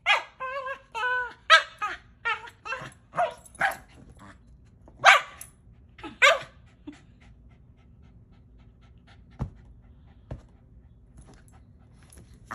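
Small terrier barking and yapping in rough play, a rapid string of barks over the first six or so seconds. After that it goes quiet except for two dull thumps about a second apart.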